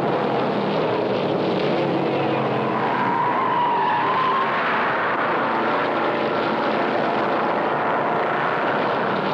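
1963 NASCAR V8 stock cars racing, their engines running hard in a steady, continuous din. A brief wavering higher tone rises out of it about three seconds in.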